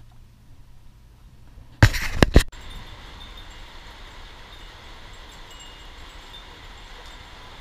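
A short cluster of loud knocks and rubbing, about two seconds in, then a steady hiss of light rain falling on the pond.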